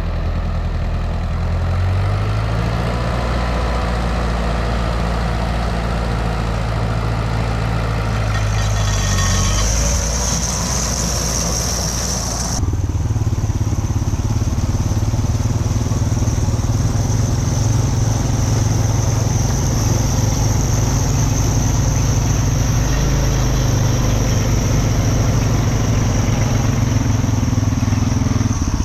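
Tractor engine running steadily at working throttle while pulling a manure spreader in the field, with a high steady whine joining in partway through. The sound changes abruptly a little before halfway.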